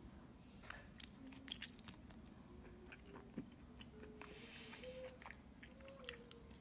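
Faint eating sounds from biting and chewing cooked octopus tentacles: scattered small wet clicks and smacks at the mouth.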